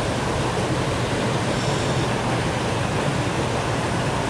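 Steady rush of turbulent water churning out of a hydroelectric dam's running generators, with a low, even rumble beneath it.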